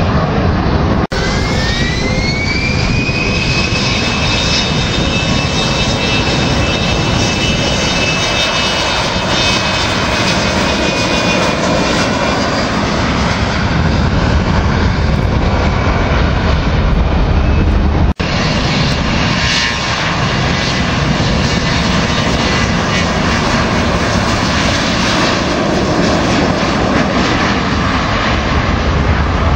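Business jets' turbofan engines at the runway: a whine rising in pitch as the engines spool up, then holding steady under loud engine noise at takeoff power. About 18 seconds in an edit cuts to another jet, its engine noise heavier and lower with a fainter whine.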